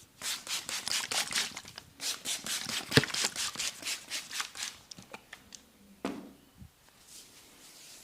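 Fingers rubbing and scratching quickly through hair on a scalp during a head massage, in two runs of about four or five strokes a second, with one sharp crack about three seconds in, then a few scattered ticks.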